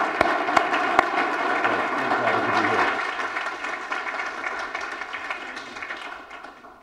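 Audience applauding, a dense patter of many hands clapping that fades away gradually over the last few seconds.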